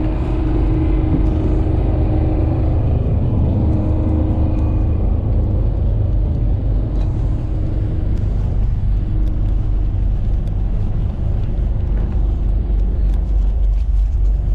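Small passenger ferry's diesel engine running, a steady loud low rumble with a faint hum over it in the first few seconds.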